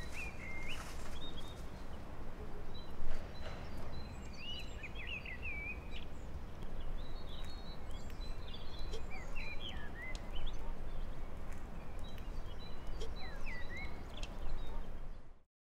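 Outdoor ambience: small birds chirping on and off over a steady low rumble, with a brief knock about three seconds in. It all cuts off suddenly near the end.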